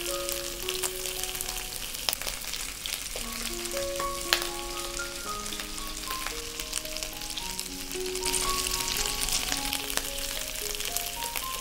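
Cauliflower steaks frying in hot oil and melting butter in a nonstick pan: a steady sizzle full of fine crackles. The sizzle grows louder about eight seconds in.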